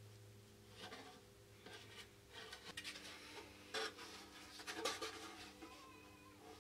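Depron-foam and plywood model wing root being handled and turned over in the hands: soft rubbing and scratching, with two light knocks about four and five seconds in, over a faint steady electrical hum.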